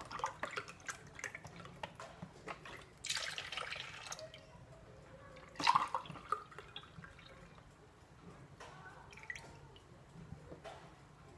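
Milk being poured from a carton into a plastic measuring glass and tipped from the glass into a plastic mixing bowl, in several uneven splashy pours with small knocks between them.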